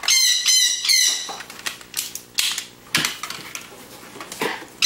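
High-pitched squeaking calls from a small animal, three in quick succession, each bending down in pitch. A few light clicks of something being handled follow, and the calls come again at the very end.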